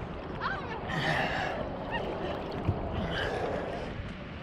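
Sea water sloshing and splashing around a camera held at the surface beside a catamaran's hull, with a few short gasping voice sounds from swimmers.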